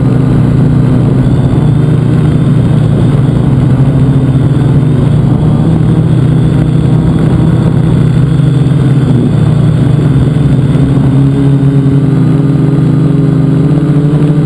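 Multicopter's electric motors and propellers buzzing loudly close to the microphone on the craft, the pitch shifting up and down a little as the throttle changes.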